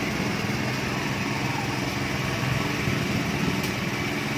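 A small engine running steadily at a constant speed, a low unchanging hum. A couple of faint taps sound near the end.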